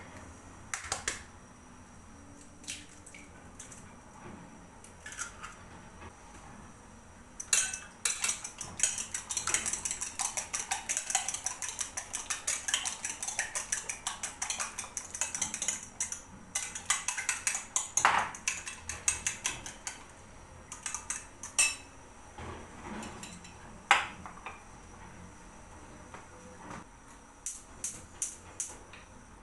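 Metal cutlery clinking against dishes. A few scattered clinks give way to a long run of quick, rapidly repeated clinks through the middle, then single clinks again.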